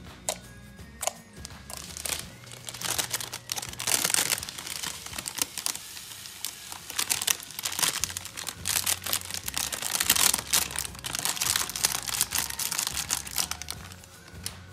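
Clear borax slime being kneaded and squished by hand, giving dense crackling and clicking that comes and goes in waves, over quiet background music.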